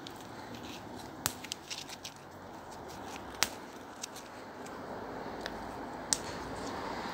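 Olive leaves and twigs rustling as a hand grabs and strips leaves from an olive tree's branches. Several sharp snaps come through as leaves break off, the loudest about three and a half seconds in.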